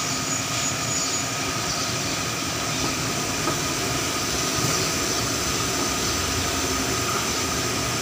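Steady mechanical drone with a constant hum running through it, unchanging throughout.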